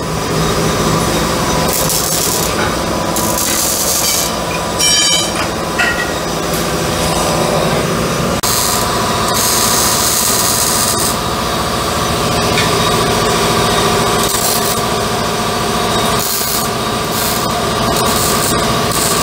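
Arc welding on a car's exhaust pipe, welding the tail-pipe tips in place: the arc crackles and hisses in bursts that start and stop, over a steady hum.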